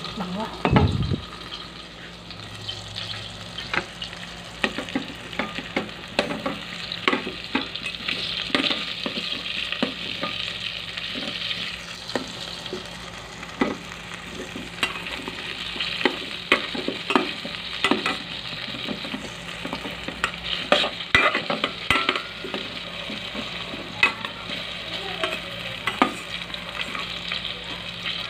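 Sweet potato slices sizzling as they fry in butter in a rice cooker's inner pot, with a steady hiss. A metal spoon scrapes and clinks against the pot many times as the slices are stirred and turned, and there is a low thump about a second in.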